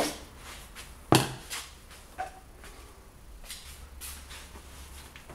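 A few sharp clicks and knocks of hand tools and plastic engine parts being handled, the loudest about a second in, followed by softer rustling strokes.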